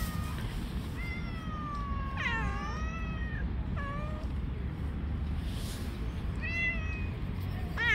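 Stray cats meowing repeatedly. A long meow about a second in overlaps another meow around two seconds, and shorter meows follow near four seconds and near the end.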